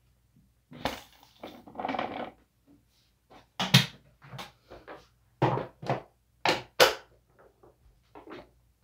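A Bissell bagless vacuum's clear plastic dust cup being emptied onto carpet: a rustling pour of debris about a second in, then a series of sharp clacks and knocks from the cup over the next few seconds.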